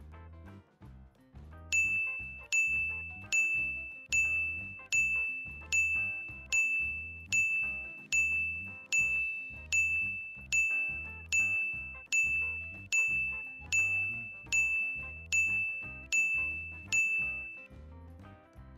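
Background music with a soft steady beat, joined about two seconds in by a bell-like ding at one pitch, struck about every 0.8 seconds and dying away after each strike, about twenty times; the dings stop a little before the end.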